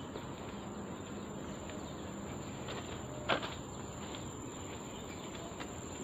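Forest insects keeping up a steady high-pitched drone, with a few faint chirps and a single sharp knock about three seconds in.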